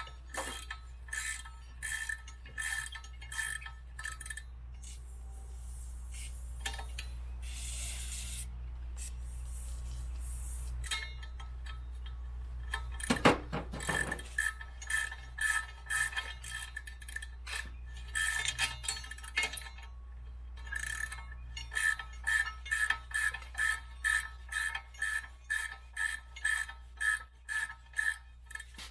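Ratchet wrench clicking in quick runs of strokes, broken by pauses, as a rusted parking brake adjuster nut is worked on its screw; a short hiss comes about eight seconds in.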